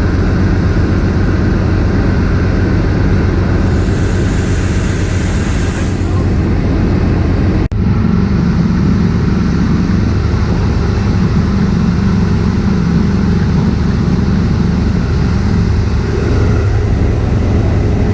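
Boat's twin 350 V8 inboard engines running steadily under way, with a broad rush of wind and water over them. A very brief break in the sound comes about eight seconds in.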